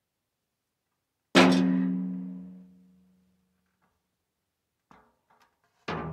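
One loud, hollow bang with a low drum-like ring that fades over about a second and a half. A second, smaller knock comes near the end.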